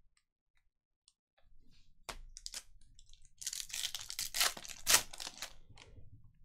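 Silver foil wrapper of a trading-card pack crinkling and tearing open in a dense run of crackles, loudest about five seconds in. A single sharp click comes about two seconds in.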